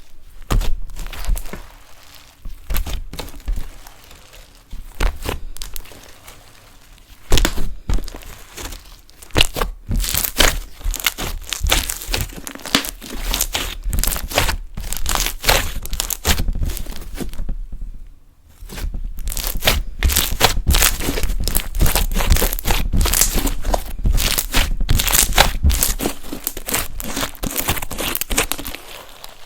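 Glue-based (Bond) slime being squeezed, stretched and pressed by hand: wet clicks, pops and crackles, sparse at first and then dense and steady, with a short break a little past the middle.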